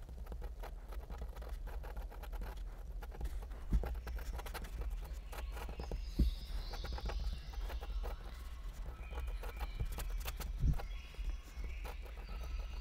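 Fine-tipped pen scratching and tapping on paper in quick, dense strokes while sketching, with a few louder knocks, over a steady low hum.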